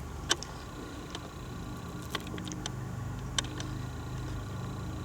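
Walking-and-handling noise from a handheld camera: a handful of sharp, isolated clicks or snaps, about one a second, over a steady low hum.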